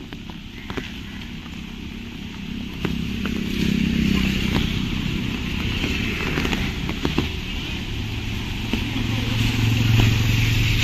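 Road traffic: motor vehicles running close by, with a steady engine hum that grows louder a few seconds in and again near the end, and scattered sharp clicks.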